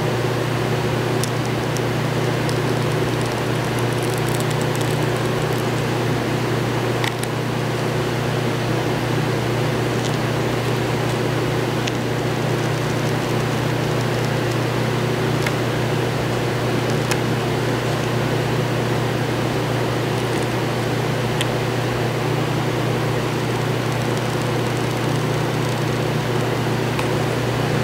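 Steady mechanical hum with a rushing air noise, and a few faint ticks scattered through.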